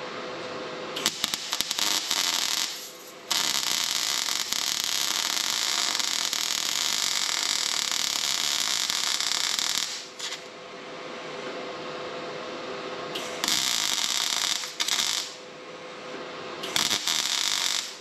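Wire-feed welder arc crackling and sizzling as a broken weld on a thin sheet-metal tractor step is rewelded, in four runs: a short one about a second in, a long one of about six seconds, then two short ones near the end. A steady hum continues underneath.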